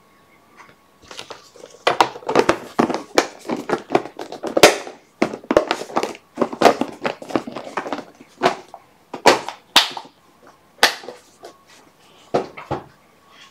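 Clear plastic compartment storage box being handled: a dense run of plastic clicks, knocks and rattles as the lid and contents are moved, thinning out to a few separate knocks near the end.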